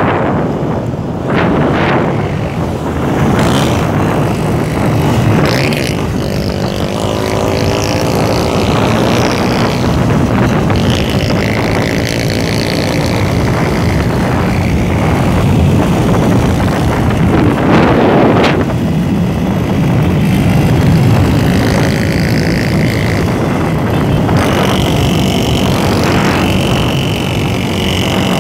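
Motorcycle engine running at road speed, around 100 km/h, heard from the rider's seat under heavy wind rush over the microphone. The engine note rises and falls with the throttle.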